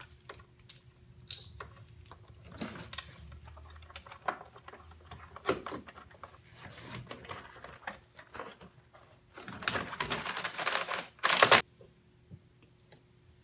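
Hands working car wiring and plastic interior trim: scattered clicks, taps and rustles of wire and panels, with a louder rustling noise lasting about two seconds near the end.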